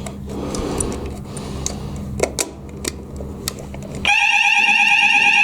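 A few light clicks and knocks, then about four seconds in a building fire alarm sounder comes on suddenly with a loud steady electronic tone. It has been set off from a manual call point during a routine weekly alarm test.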